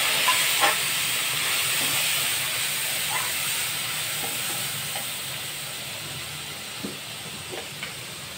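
Water-soaked ground spices sizzling in hot oil in a steel kadai. The hiss is loud at first and dies down steadily as the liquid settles. A few light clicks of a steel spatula against the pan.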